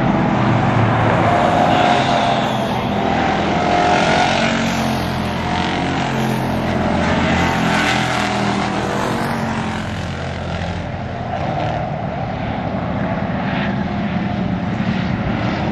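Several stock car engines running as the cars lap a short oval, with one car passing close by about eight seconds in.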